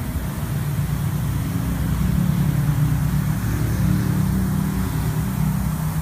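High-pressure fog pump running with a steady low mechanical hum, under a continuous hiss from its misting nozzles spraying.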